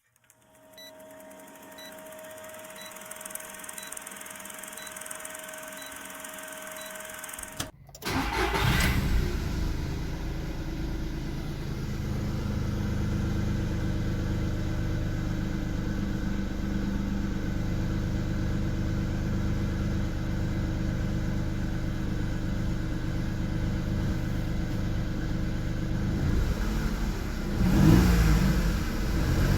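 JAC J2 car being started: for the first several seconds only a faint hum with a steady tone and regular soft beeps is heard, then the engine starts about eight seconds in and settles into a steady idle, rising briefly near the end.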